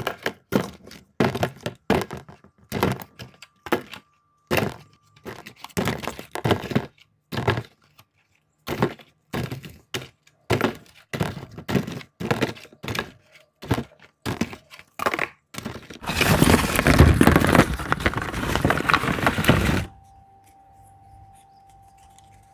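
Plastic Kinder Joy eggs dropped one at a time into a plastic tub, each landing with a hard clack against the tub and the other eggs, about one a second. About sixteen seconds in, a dense clatter of many eggs at once lasts some four seconds, then the sound drops to a faint steady hum.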